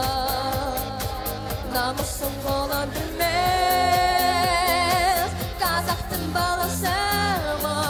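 A boy singing a song into a handheld microphone over instrumental accompaniment with a steady beat. He holds a long note with vibrato from about three seconds in, then a shorter held note near the end.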